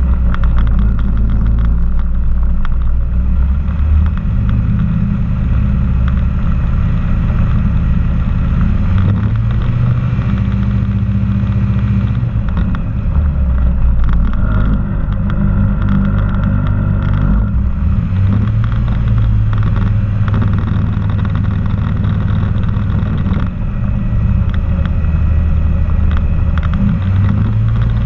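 Challenger II ultralight's engine and propeller running steadily while the plane taxis on the runway, the engine speed shifting up and down a little now and then. It is heard close up from a camera mounted on the aircraft.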